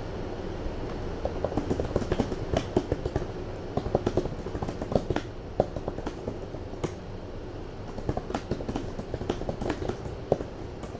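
Laptop keyboard typing: quick irregular runs of light key clicks with a short lull around the middle, over a steady low hum.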